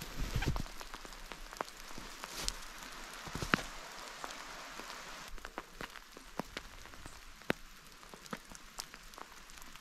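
Rain pattering and dripping from wet trees onto snow and the forest floor, with scattered sharp drips at irregular intervals.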